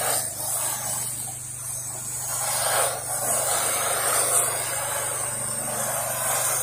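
Pressure-washer wand spraying house siding: a steady hiss of water, over the steady hum of the pressure washer's engine.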